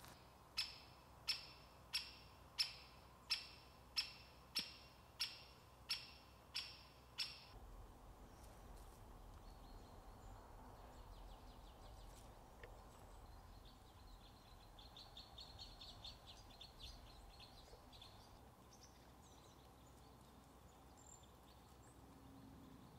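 Birds calling in a forest: a sharp call repeated about eleven times at roughly one and a half a second, then, about a dozen seconds later, a short rapid high trill.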